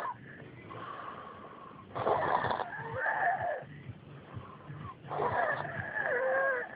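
A sleeper snoring: two long snores about three seconds apart, each with a whistling wheeze that wavers in pitch.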